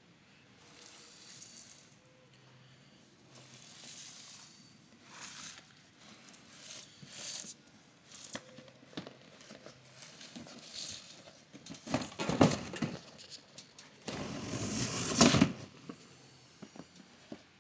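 A cardboard shoebox being handled and opened by hand: scattered scrapes, rubs and light taps of cardboard, with the loudest, longest scraping in the last third as the lid comes off.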